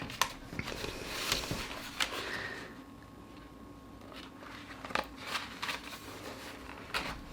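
Disc packaging being handled: faint rustling with a few scattered light clicks and taps.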